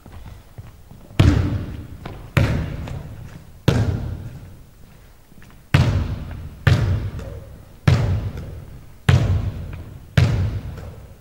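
Basketball bouncing hard on a hardwood gym floor, eight heavy single bounces about a second apart, each echoing in the large hall.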